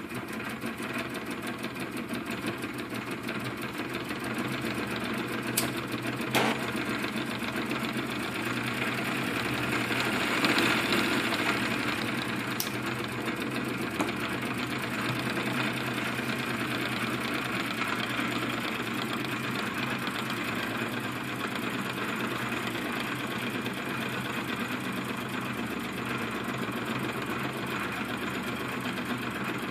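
Small plastic toy steam engine with two oscillating cylinders in a V, running fast under steam with a steady, rapid clatter. It swells briefly louder about a third of the way in, with a few sharp clicks.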